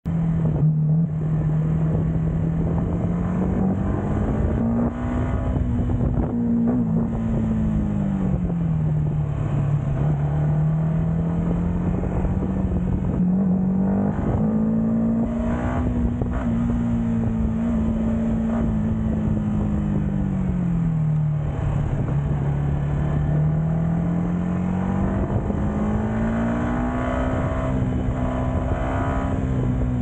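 Yamaha MT motorcycle engine and exhaust running under way, its pitch rising and falling slowly several times as the throttle is opened and eased off, over a steady rush of wind noise.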